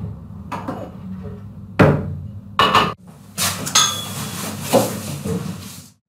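Dishes being handled in a kitchen: a few sharp knocks and clatters as crockery is taken out and put down, then a longer scraping, rustling stretch with faint ringing as a plate is moved about on the table.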